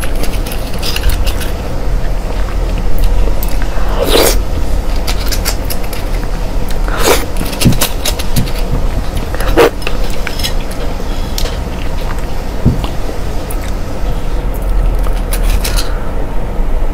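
Close-miked eating sounds: a spoon scraping sea urchin roe out of the spiny shell, with a few sharp clicks scattered through, over a steady low rumble.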